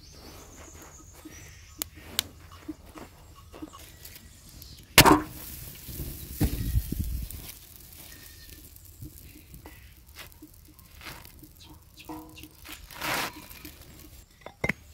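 A large sheet of flatbread dough is slapped down onto a hot iron saj griddle over a wood fire about five seconds in, followed by a few seconds of hissing. The wood fire crackles in faint, scattered clicks, with another brief noise near the end.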